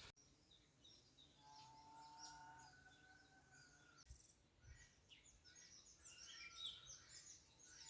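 Near silence with faint birdsong: scattered short chirps, busiest in the second half.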